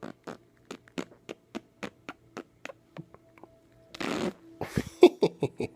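A steady run of short mouth clicks, about four a second, then a breathy burst about four seconds in and a quick string of buzzing raspberry pops near the end.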